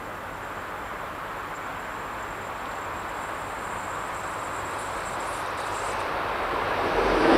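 Approaching VR Sr1 electric locomotive hauling passenger coaches, a steady rumble of the train on the rails that grows louder as it nears and swells sharply near the end as it reaches the camera.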